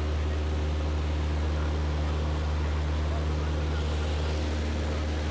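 Single-engine light aircraft's engine and propeller droning steadily, heard inside the cockpit in flight: a deep even hum with a constant rush of air noise over it.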